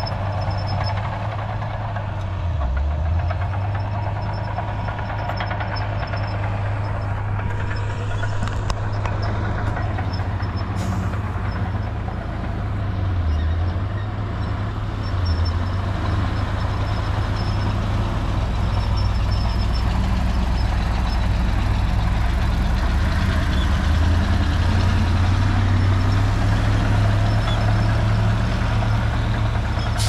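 Heavy diesel engine of earthmoving machinery running steadily under load. Its low drone dips in pitch a few times and gets louder in the second half.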